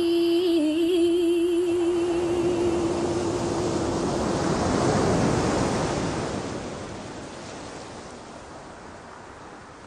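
A woman's sung note, held steady, ends about four seconds in as the sound of ocean waves washing on the shore swells up. The surf then fades gradually.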